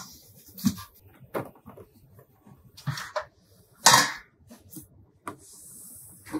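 A stainless-steel pot and a bamboo strainer being handled, with simmered shiitake tipped from the pot onto the strainer: a handful of separate knocks and clunks, the loudest about four seconds in.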